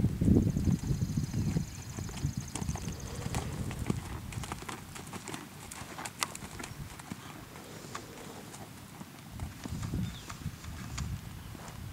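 Hoofbeats of a horse trotting on a sand arena, dull thuds that are loudest in the first two seconds, fade as the horse moves off, and swell again about ten seconds in.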